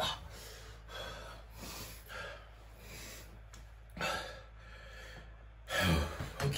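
A man breathing hard and gasping in repeated heavy breaths, with a louder gasp near the end. He is out of breath from riding his bicycle, which he puts down to exercise-induced asthma.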